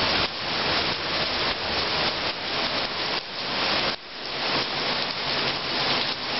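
Heavy rain falling in a thunderstorm: a steady hiss of downpour that swells and eases, dipping briefly about four seconds in.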